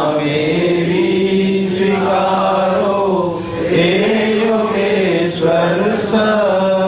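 A man singing a Hindi devotional prayer in slow, drawn-out, long-held notes, chant-like.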